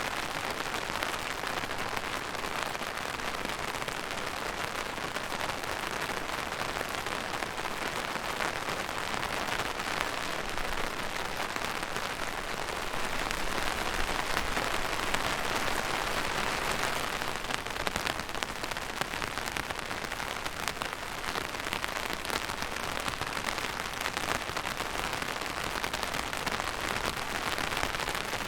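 Steady rain falling on a surface, a dense hiss of many individual drops, swelling slightly heavier for a few seconds in the middle.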